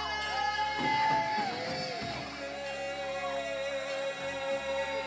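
Live rock band playing: electric guitar lead with sliding, bending notes over held chords and a steady bass line, with little drumming.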